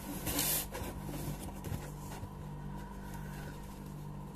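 Hands handling a VHS cassette and packing paper: a short rustle about half a second in, then a few faint handling ticks, over a steady low hum.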